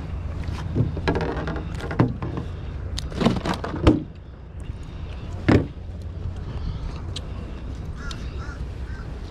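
Wind rumbling on the microphone, with a bird's short harsh calls repeated near the start and again near the end. Several sharp clicks and knocks come from fishing pliers and tackle being handled.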